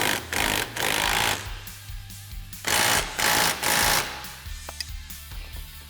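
Impact wrench hammering in short bursts, once about a second in and then three times in quick succession, running the bolts through the roll cage to full tightness.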